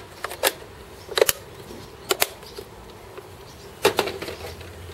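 Handling noise: about half a dozen sharp, irregularly spaced clicks and knocks of hard plastic, a couple of them in quick pairs, as the radio-control transmitter and its battery compartment are handled.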